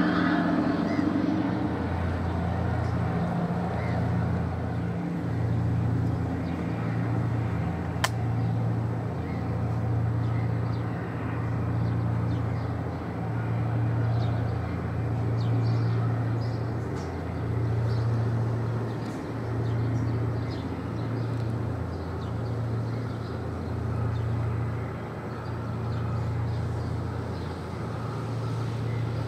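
Low drone of a passing container ship's diesel engine, a steady throb that swells and fades about every two seconds. A single sharp click sounds about eight seconds in.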